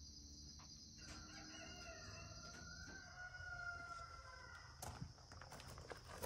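A rooster crowing once, a single long call of about two and a half seconds, faint, over a steady high-pitched insect drone.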